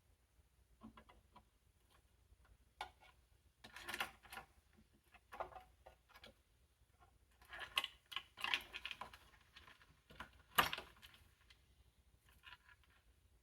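Irregular clicks and light scraping of hard plastic and metal computer parts being handled, in short clusters, with one sharp click about ten and a half seconds in.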